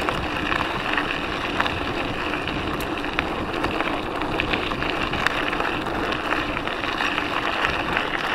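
Mountain bike rolling fast over a gravel trail: a steady rush of tyre and wind noise, dotted with small sharp clicks and rattles from loose stones and the bike.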